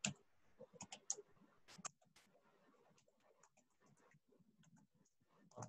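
Faint typing on a computer keyboard: a run of short key clicks in the first two seconds, then only a few faint taps.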